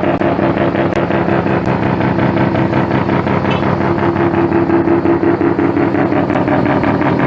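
Mazda RX-8's twin-rotor Wankel rotary engine running steadily, its exhaust note a fast, even pulsing at a nearly constant pitch.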